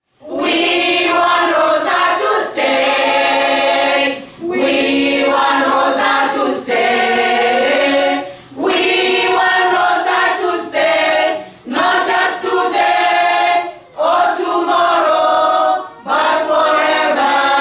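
Women's choir singing unaccompanied, in sung phrases of a few seconds each with short breaths between them.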